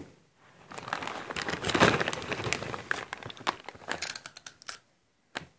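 Plastic crisp packets crinkling and rustling as they are handled, with sharp crackles among the rustle; it stops near the end.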